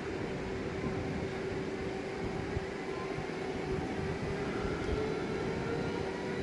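Train moving through the station: a steady rumble with a steady hum, and a faint whine that rises in pitch about five seconds in.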